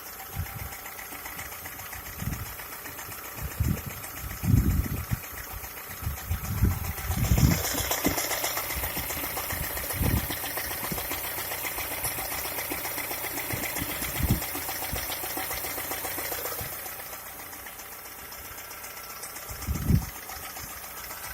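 Skoda Octavia A5's 1.6 MPI petrol four-cylinder engine running with a rapid, steady knocking tick, louder in the middle stretch; the owner does not know what is causing the knock. Several dull thumps are heard at irregular moments.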